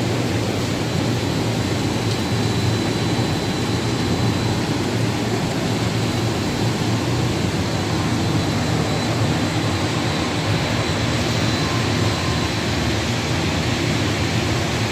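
Breadcrumb processing line machinery running steadily: a continuous mechanical din with a low hum and a faint high whine.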